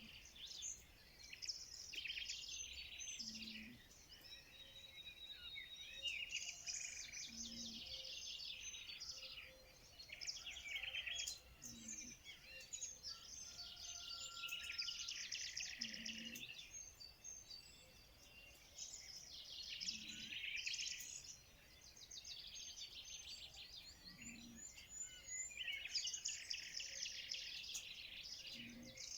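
Songbirds singing and chirping together in a dense, continuous chorus of high twittering, with a short low note recurring about every four seconds.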